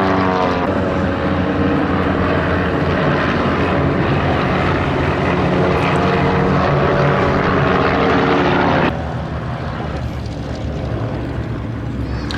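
Several single-engine propeller aerobatic aircraft (Van's RV-8s) flying a display, their piston engines and propellers droning loudly, with the engine note falling in the first second. About nine seconds in, the sound drops abruptly to a quieter, duller drone.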